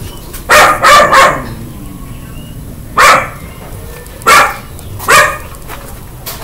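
A dog barking: a quick run of three barks, then three single barks spaced about a second apart.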